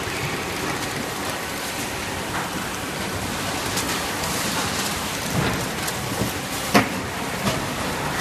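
Automatic detergent-bottle filling and labeling line running: a steady mechanical noise from the conveyor and labeling machine, with a few sharp clicks or knocks in the second half.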